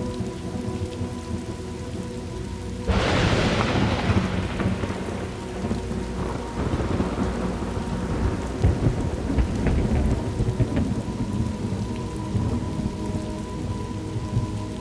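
Thunderstorm ambience: steady rain with a sudden crack of thunder about three seconds in that rolls off into a long low rumble.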